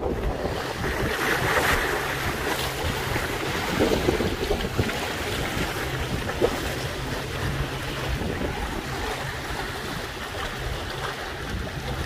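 Sea waves washing and splashing against concrete tetrapods of a harbour breakwater, with wind buffeting the microphone.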